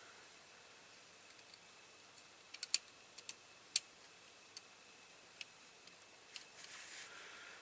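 Small diecast toy car parts being handled and fitted: a few scattered light clicks and taps, with a brief soft rustle near the end.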